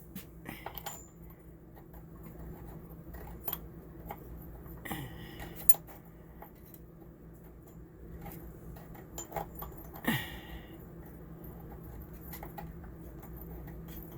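Scattered metallic clicks and clinks of a hand ratchet and socket working on the old roof air conditioner's mounting bolts, over a low steady hum.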